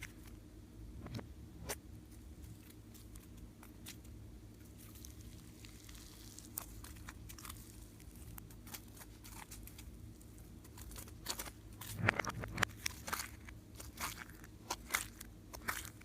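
Slime being kneaded and pressed by hand, giving irregular small sticky pops and crackles, with a louder cluster of them about twelve seconds in.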